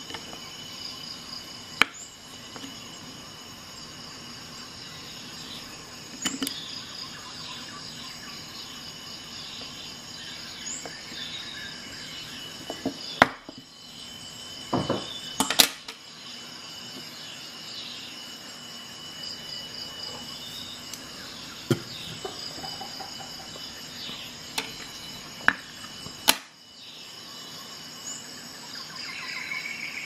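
Sharp metal clicks and taps every few seconds, a few of them loud, from a Victorinox Bantam Alox aluminium pocket knife: its tools are opened and snapped shut, and its screwdriver tip works screw heads. A steady high hiss with faint chirps runs underneath.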